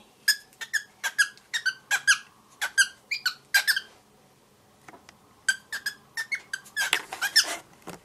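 Grey cockatiel chattering in quick runs of short, high chirps, about three a second. The runs stop for about a second and a half around the middle. The owner takes this babble for the young bird trying to talk.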